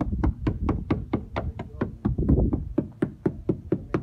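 Background music with a quick clicking beat, about five clicks a second.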